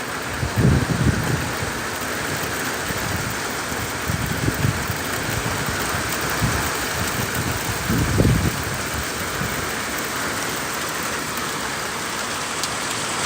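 Heavy thunderstorm rain pouring down in a steady hiss, with several short low rumbles, the loudest about eight seconds in.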